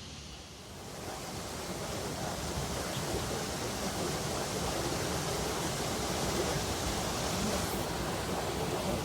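Flowing water rushing steadily, growing louder about a second in and then holding steady.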